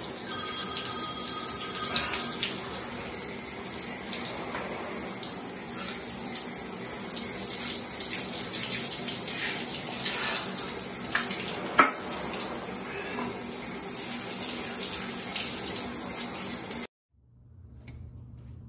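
Shower running steadily, its spray falling on a person standing under it. A few short electronic ringtone notes sound in the first two seconds, and the water cuts off abruptly near the end, leaving faint room tone.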